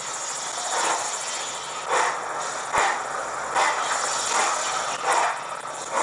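Recorded steam locomotive sound from a Hornby HM7000 decoder's W1 sound file, played through a small boom speaker: slow, evenly spaced exhaust chuffs, a bit over one a second, over a steady hiss, with one sharper click near the middle.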